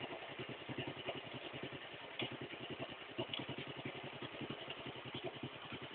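Boat engine running steadily at a low, even speed, with a rapid regular chugging pulse.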